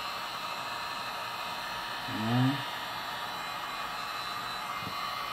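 Electric heat gun running steadily with a constant blowing hiss as it heats a vinyl decal to soften it. A man's voice makes a brief sound about two seconds in.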